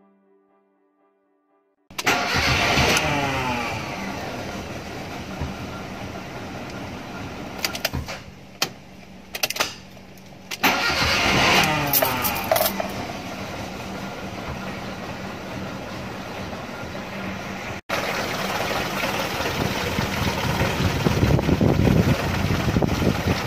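Car engine starting and revving, the revs falling back. It catches again with a second rev about halfway through, then runs on steadily after a sudden break.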